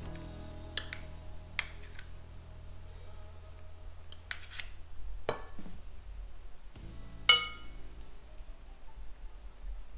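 Metal utensils clinking and scraping against a plate and pan while food is served. There are scattered clicks and one loud ringing clink about seven seconds in.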